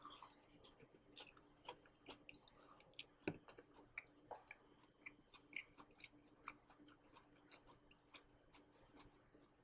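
Faint chewing of crunchy dry-fried green beans: scattered small crunches and mouth clicks, irregular throughout.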